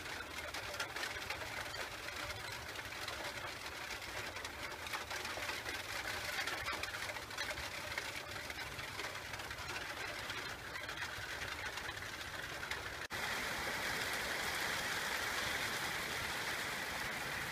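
Heavy rain pouring down, a steady hiss full of pattering drops. About 13 seconds in the sound changes abruptly to a louder, denser rush.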